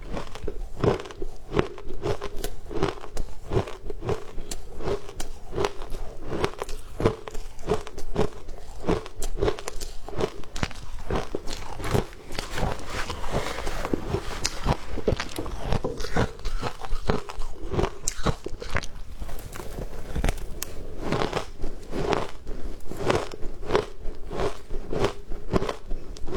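Ice being bitten and chewed close up: a steady run of sharp crunches, with a slightly denser, grainier stretch a little before the middle.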